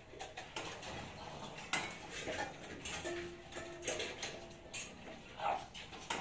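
Scattered light clicks and clinks of hand work on a trellis frame, irregular and sharp, with a faint short steady tone heard briefly near the middle.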